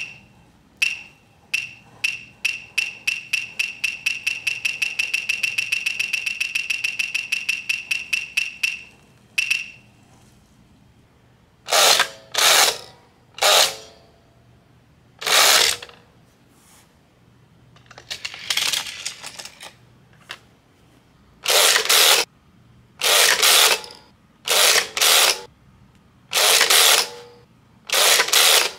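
Plastic toy terminal mechanism clicking like a ratchet, the clicks speeding up to several a second and then stopping about nine seconds in. Then a string of short, loud plastic rattling scrapes, each about half a second long, as the toy's parts move.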